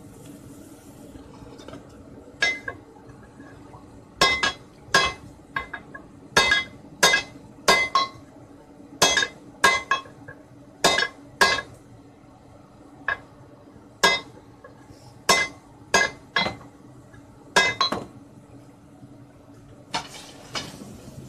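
Small sledgehammer striking a heated 19 mm deformed steel rebar to straighten it: about twenty sharp, ringing metal blows in irregular runs with short pauses.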